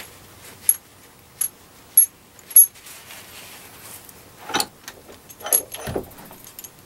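Four sharp, ringing metal clinks, then a run of knocks and a dull thump as a steel bench vise is opened and a freshly soldered PL-259 connector with its antenna rod is taken out.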